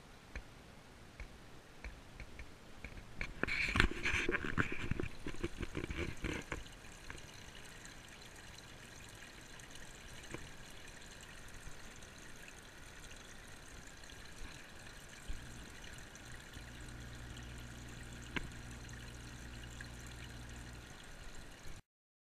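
Water pouring and trickling from an aquarium filter outflow into a turtle tank, with a louder splashing stretch about four seconds in. A low steady hum joins about fifteen seconds in, and the sound cuts off abruptly near the end.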